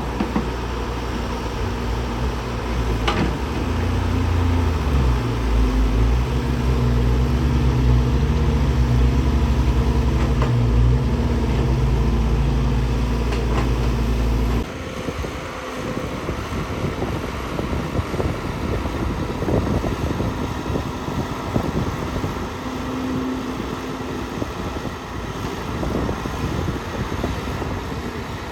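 Heavy construction machine's diesel engine running loud and steady, rising in pitch about four seconds in as it comes under load. About halfway through it cuts off abruptly, giving way to a noisier mix of rattling and many small knocks.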